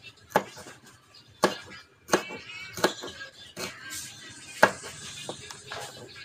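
Cleaver chopping red chillies on a wooden cutting board: about seven sharp knocks of the blade against the board, spaced irregularly roughly a second apart.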